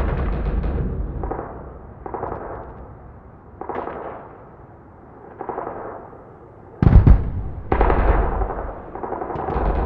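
Short bursts of rapid automatic gunfire, one after another, each trailing off in an echo, with a single louder bang about seven seconds in.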